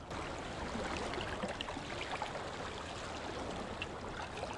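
Calm sea water lapping and trickling among the rocks at the foot of a rock wall, a steady gentle wash with faint scattered ticks.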